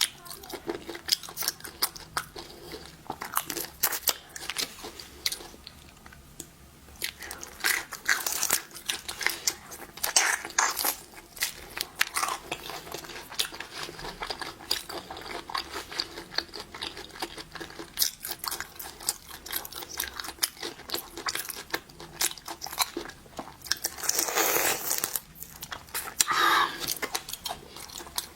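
Crunching and chewing while eating shellfish: a dense run of sharp cracks and crunches, with a longer, louder stretch of crunching near the end.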